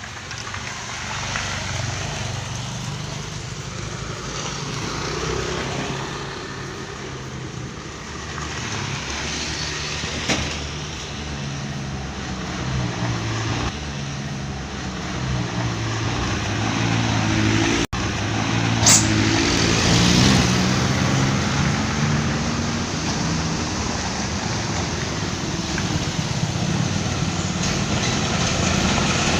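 Bus engine running with a low, shifting hum, and a brief sharp hiss a little after two-thirds of the way through.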